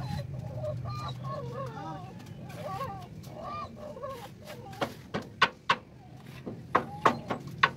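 A steel plastering trowel clicking against the hawk and the fresh cement plaster on a block wall: a run of sharp clicks in the second half, over background calls and a low hum earlier on.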